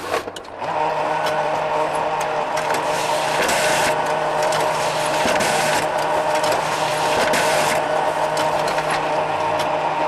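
Photocopier starting with a few sharp clicks, then running steadily with a motor hum and whir. Louder rushing passes come about three and a half seconds in and again around seven seconds.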